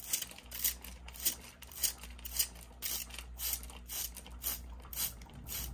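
Handheld trigger spray bottle misting water, pumped in quick repeated squirts, about three a second.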